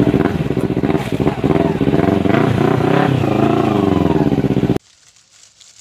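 Sport motorcycle engine revving hard as the bike pulls away, its pitch rising and falling several times. The sound cuts off abruptly near the end.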